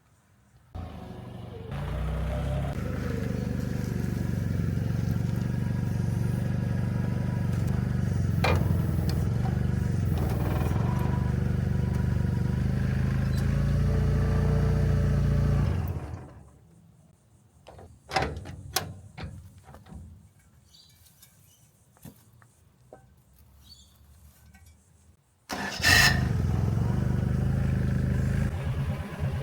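Forklift engine starting and running steadily, then shutting down about halfway through. A few clicks and knocks follow, and the engine runs again suddenly near the end.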